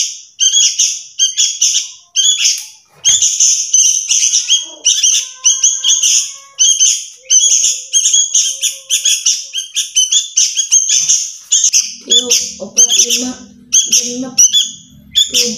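Two 20-day-old sooty-headed bulbul chicks calling loudly and without pause, short harsh calls about two or three a second, the begging calls of hand-reared young being fed crickets.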